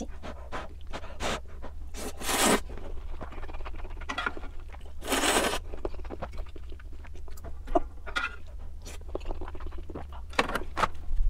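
Close-miked eating of ramen: two longer slurps about two and five seconds in, with chewing and small wet mouth clicks between, over a low steady hum.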